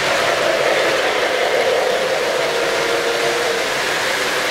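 Model trains rolling past close by on a layout: a steady whir and rumble of wheels on metal track and the electric motors.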